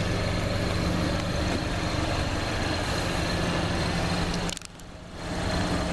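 A vehicle engine idling with a steady low hum. The sound drops out briefly about four and a half seconds in, then returns.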